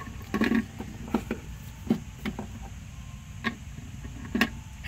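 Light plastic clicks and taps as a small Littlest Pet Shop figurine is knocked against a plastic toy pet carrier, about six separate ticks at uneven spacing.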